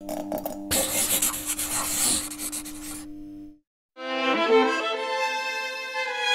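Intro logo sting: a bright rushing noise over a held low tone that fades out after about three seconds. After a short silence, music with bowed strings starts about four seconds in.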